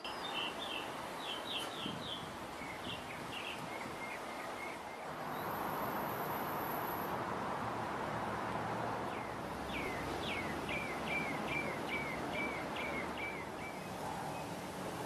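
Birds chirping over a steady outdoor hiss: a run of short chirps in the first few seconds, then a quicker run of about ten falling chirps from about ten seconds in.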